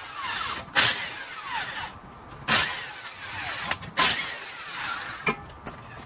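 Impact wrench running lug nuts on a mini truck wheel in four short bursts about a second and a half apart, each ending in a falling whine as the motor spins down, then a sharp metallic click near the end.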